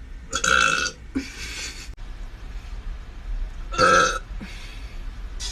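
A woman burping loudly, twice: one burp about half a second in and another about four seconds in, with quieter sounds between.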